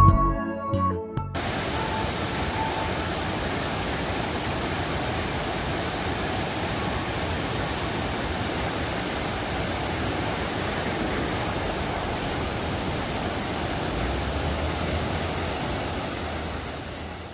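Steady rushing of a waterfall, an even wash of water noise that cuts in about a second in as music ends and fades away near the end.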